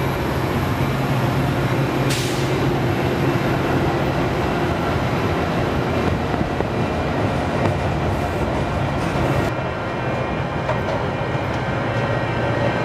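Metra commuter train's bilevel passenger cars rolling past at speed: a steady rumble of wheels on rails, with a sharp click about two seconds in.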